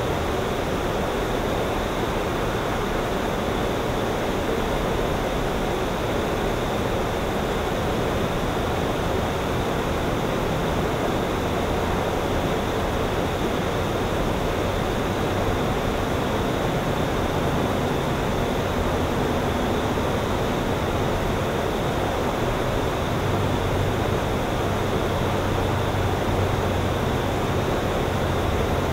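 Steady, even outdoor rushing noise with no distinct events. A low drone grows underneath it over the second half and is strongest in the last few seconds.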